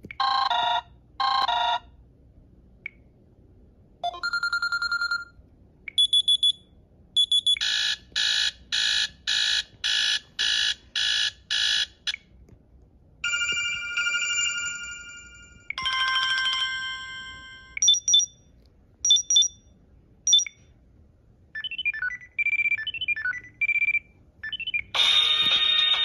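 A Samsung Galaxy S Blaze 4G's speaker plays a string of short alarm-tone previews one after another: beeps, a run of evenly spaced buzzes, chimes and chirps. Each preview is cut off after a second or few as the next tone in the list is picked.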